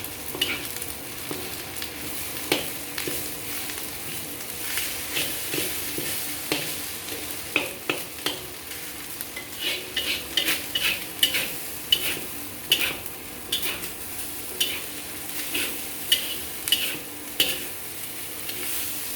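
Fried rice sizzling in a wok as it is stir-fried, with sharp clanks of the spatula striking and scraping the pan. The strokes come quick and close together through the second half.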